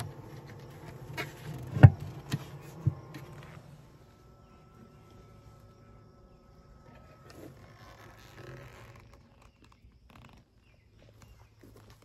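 Honeybees buzzing around the hives as a steady low hum, with a few sharp knocks in the first two or three seconds, the loudest just under two seconds in. After about four seconds it drops much quieter.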